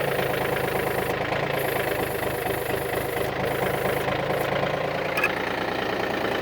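Yanmar F235D's three-cylinder diesel engine idling steadily, with a short click about five seconds in.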